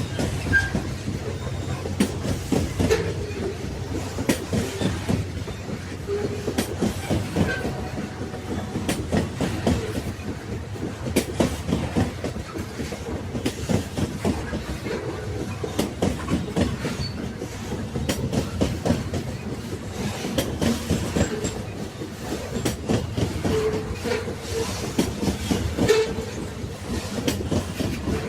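Train cars running on the rails: a steady rumble with irregular clicks and knocks of the wheels over the track, and a few brief squeaks.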